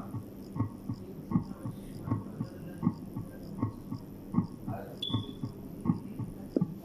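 Heart sounds of pulmonary stenosis as heard through a stethoscope: a steady heartbeat of about 80 a minute. Pulmonary stenosis is marked by a systolic ejection murmur after the first heart sound.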